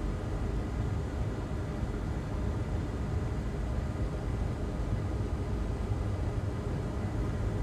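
Steady hum and hiss of a fan running, even throughout, with a faint high tone and no other events.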